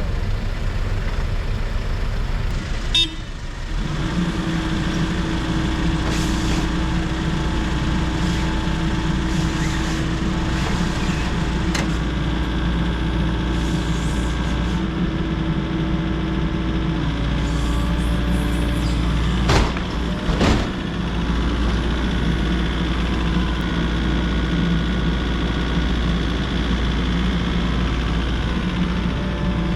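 Volvo excavator's diesel engine running steadily, with a few sharp knocks: one about three seconds in and two close together around twenty seconds in.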